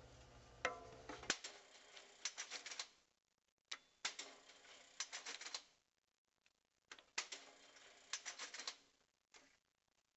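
BUNN tying machine cycling to tie string around a bundle of kindling sticks: rapid mechanical clicking and clattering in three bursts of about two seconds each. A low hum cuts off just over a second in.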